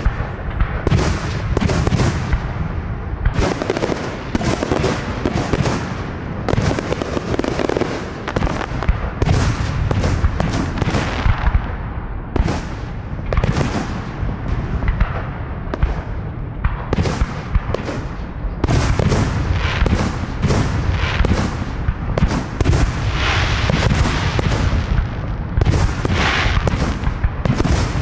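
Fireworks display: aerial shells bursting in quick succession, sharp booms and reports following one another without a break over a steady low rumble.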